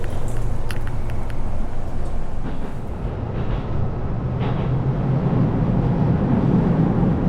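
Train running: a steady low rumble with a few sharp clicks in the first second or so, growing heavier and louder over the last few seconds.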